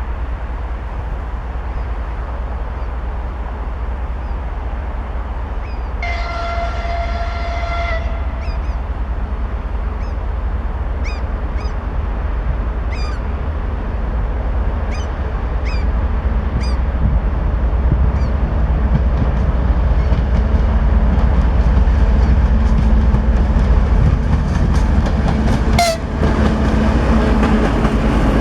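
A TEP70 diesel locomotive gives one horn blast of about two seconds. Its diesel rumble and the passenger train's wheels then grow louder, with wheels clacking over rail joints near the end.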